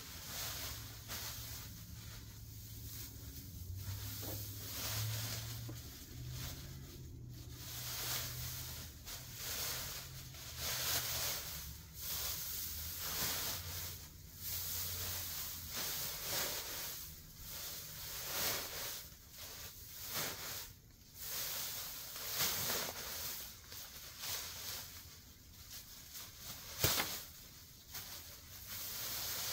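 Irregular rustling and crackling of dry grass and weeds being pulled up and handled, with a low hum underneath during the first third. Near the end there is a single sharp snap, the loudest sound.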